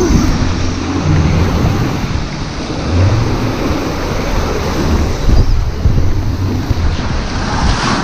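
Whitewater rapids rushing and churning around a round river-rapids raft, heard close up, with wind buffeting the microphone.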